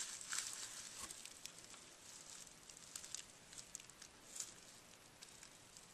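Faint handling noise: scattered light ticks and soft crackling as a circuit board is turned over in the hands above bubble-wrap packing, with one slightly louder tick a little over four seconds in.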